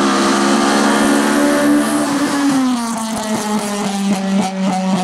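Racing car engine running at high revs on a hill-climb course. Its pitch drops about two and a half seconds in, then holds steady with a rapid, regular crackle.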